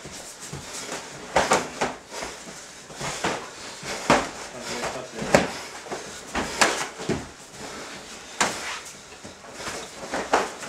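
Gloved punches and kicks landing on bodies and gi in full-contact karate sparring: sharp slaps and thuds at irregular intervals, about one every second, with footsteps on the mat between them.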